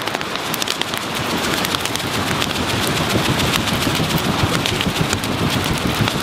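Campfire of split logs burning hard, crackling with dense, rapid pops over an even rushing noise.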